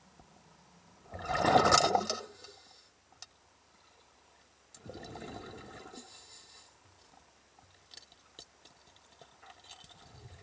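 Water gurgling and bubbling around a submerged camera: a loud rushing burst about a second in, and a second, softer gurgle about five seconds in.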